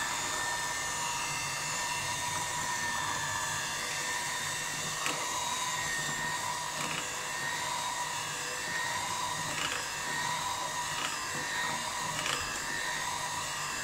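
Electric hand mixer running steadily at low speed, its beaters turning through a thick flour-and-egg batter in a glass bowl: a steady motor whine with a few faint ticks.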